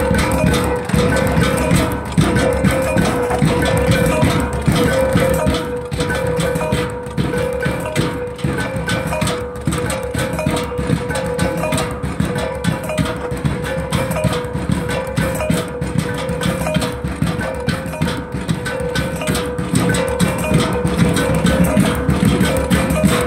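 Loud dance music with a fast, driving beat of drums and wood-block-like strikes over a steady held tone.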